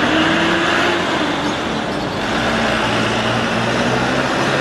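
Busy city street traffic: road vehicles running past with a steady hum of engines and a constant wash of traffic noise.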